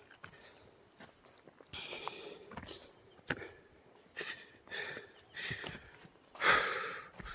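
A person panting hard from the exertion of a steep climb, a series of breathy puffs with the loudest, longest exhale near the end, over scattered clicks and scuffs of footsteps on rock.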